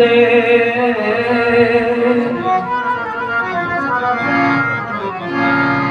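Two harmoniums playing the melody in held reed notes with tabla accompaniment: an instrumental passage of Sikh kirtan between sung lines.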